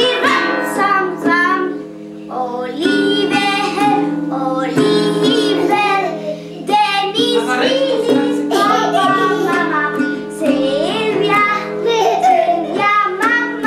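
A young girl singing in phrases while strumming a child-size classical guitar, its strings ringing steadily under her voice.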